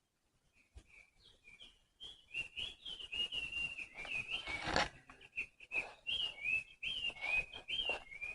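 A high warbling whistle: quick notes rising and falling one after another in a running tune, over rustling and light knocking.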